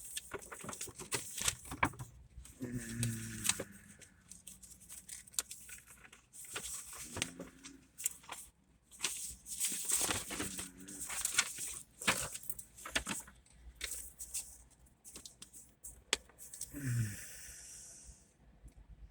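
Irregular crackling and rustling noise close to the microphone, with a few brief faint voices in the distance.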